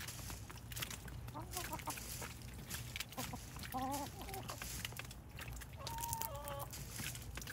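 Backyard chickens clucking softly while feeding, a few short calls, over many quick clicks of beaks pecking at water hyacinth leaves.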